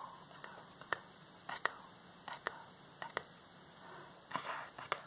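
Close-mic ASMR whispering, mostly soft breath, broken by about a dozen sharp, scattered wet mouth clicks and lip smacks.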